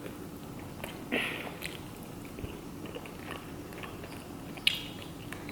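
A person chewing and biting food close to the microphone, with small wet mouth clicks throughout; a short louder crunch about a second in and a sharp click near the end.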